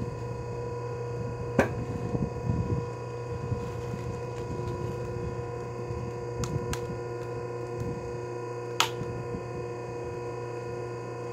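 Electric log splitter's motor humming steadily as it works through a log, with a few sharp cracks of the wood splitting.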